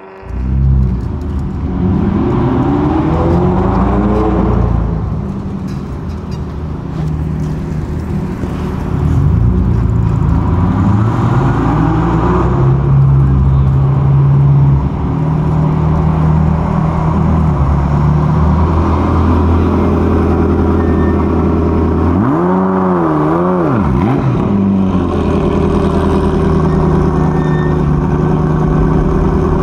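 Ferrari F40's twin-turbo V8 engine running hard, its pitch rising several times as it accelerates and holding steady between. Past the middle it is revved up and back down quickly, then settles into a steady run.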